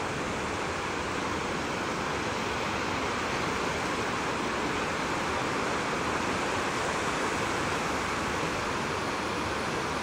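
Steady wash of small sea waves breaking and running up a sandy beach.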